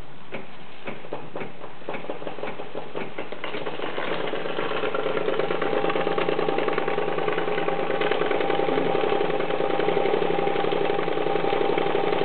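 Twin-cylinder model steam engine running on steam from an espresso maker: slow, separate ticks about twice a second at first, then it speeds up about three to four seconds in to a fast, steady, louder rattling beat.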